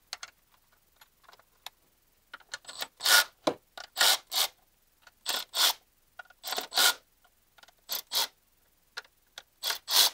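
Ratchet wrench ratcheting in short rasping strokes as the camshaft bearing cap bolts of a BMW M54 inline-six are loosened a little at a time. After faint ticks, the strokes start about two seconds in and come mostly in pairs about a third of a second apart.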